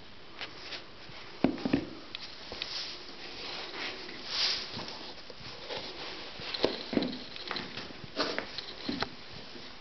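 Brown leather Timberland boots handled and knocked on a tile floor while a foot is worked into one: a few sudden dull knocks, loudest about a second and a half in and again in a cluster in the second half, with scuffing and rustling between.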